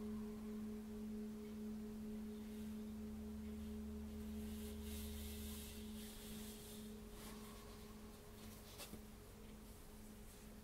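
A metal singing bowl ringing on after a strike: a steady low tone with a fainter higher tone above it, fading slowly.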